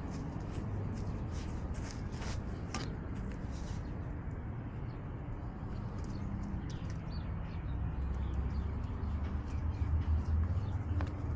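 Handling noise from a cat's collar-mounted camera as the cat moves: a steady low rumble from the microphone rubbing and jostling, with many short, sharp ticks scattered over it, most of them in the first few seconds.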